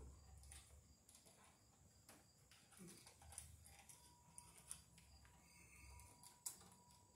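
Near silence with faint, scattered clicks and taps from handling wire at a metal electrical box; the sharpest tap comes near the end.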